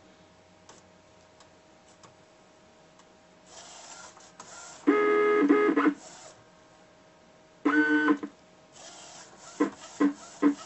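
Direct-to-garment inkjet printer running its automatic ink-pumping cycle. Its motors give two loud bursts of steady whine, about five and about eight seconds in, after a quiet stretch with a faint steady hum. Near the end come short rhythmic motor pulses, about two and a half a second.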